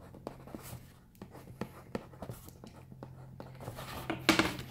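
Wax crayon tapping and scraping on a paper plate as raindrops are dotted in: irregular short taps, two or three a second. Near the end there is a louder handling noise as the plate is moved.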